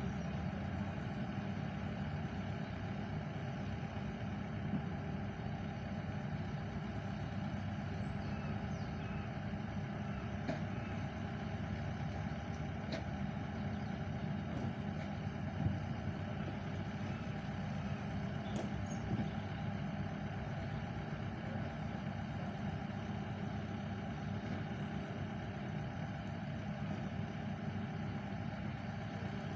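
A steady, low engine drone from machinery running at idle, unchanging throughout, with a few faint ticks here and there.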